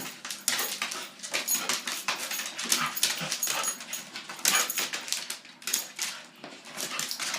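Pet dog whimpering in a tussle with a pet bird, among a string of short, irregular scuffling sounds.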